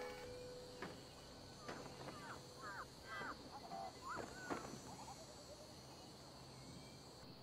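Quiet outdoor ambience: a steady high insect drone with birds chirping, mostly in the middle of the stretch, and a few faint clicks.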